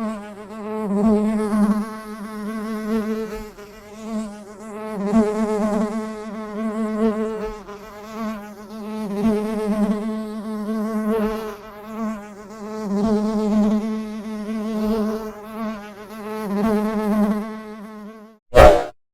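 A honeybee's wingbeat buzz, a steady drone that swells and fades every second or two as it passes closer and farther. It ends near the close with a short, loud burst.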